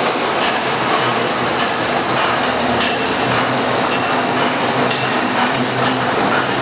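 Six-strand D-type rope-making machine running, with more machines running in the same hall: a steady mechanical noise with a few sharp clinks scattered through it.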